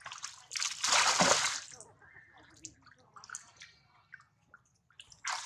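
Monkeys swimming, splashing water. There is one loud splash about a second in, smaller splashes and drips after it, and another splash near the end.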